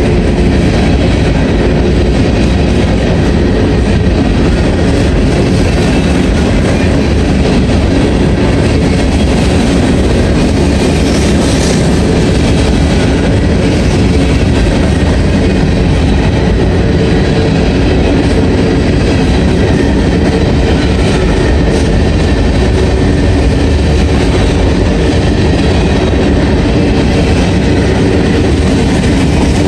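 Covered hopper cars of a freight train rolling past, with steel wheels on rail making a steady, loud rumble.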